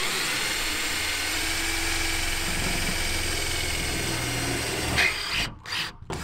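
Cordless drill boring a bolt hole through the van's sheet-metal roof, its motor spinning up and then running steadily under load for about five seconds before stopping. A couple of short bursts of the drill follow near the end.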